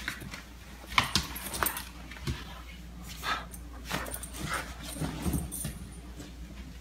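Black Labrador retriever playing with a blanket on a hardwood floor: a string of short, irregular rustling and scuffing sounds, with short dog noises now and then.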